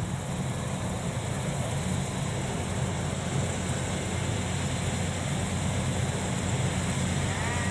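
Kubota DC93 Plus combine harvester running steadily under load as it cuts and threshes ripe rice, its engine giving a constant deep drone.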